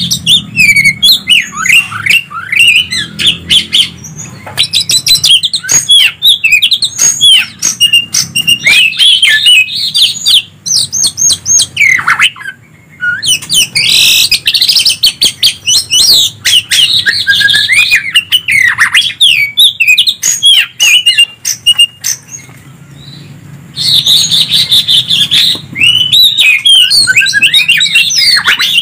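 Greater green leafbird (cucak ijo) and oriental magpie-robin (kacer) singing back and forth: a loud, dense run of quick whistles, trills and sharp clicking notes. The song breaks off briefly about twelve seconds in, goes quieter around twenty seconds, and picks up again near twenty-four.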